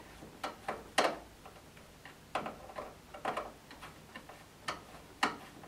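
Screwdriver working a terminal screw on a consumer unit's earth bus bar: a string of short, sharp metallic clicks at irregular spacing as the screw is turned down on the conductor.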